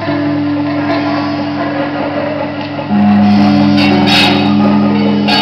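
Live instrumental music with sustained low notes held for seconds, a louder note coming in about three seconds in.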